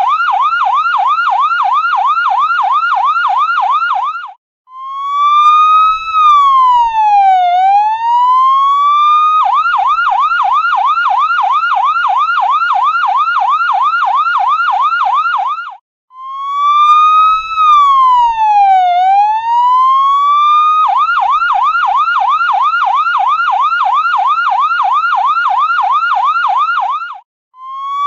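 Electronic ambulance siren alternating between a fast yelp, quick rising sweeps about four a second, and a slower wail that rises, falls and rises again over about four seconds. The cycle repeats, with a brief cut-out before each wail.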